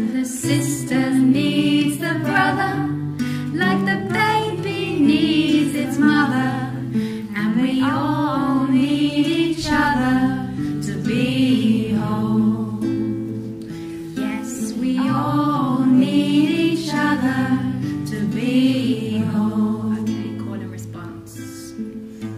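Singing of a devotional song over acoustic guitar.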